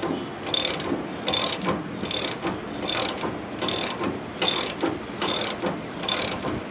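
Ratchet wrench clicking in repeated strokes, about two a second, as it turns a nut on threaded rod to draw a bushing into a leaf spring eye.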